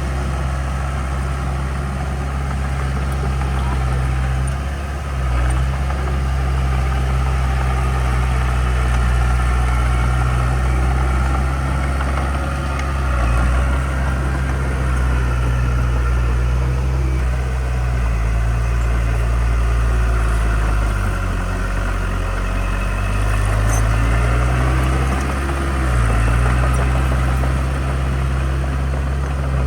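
Heavy diesel engine of earthmoving equipment running steadily; about two-thirds of the way through its speed sags and then climbs back.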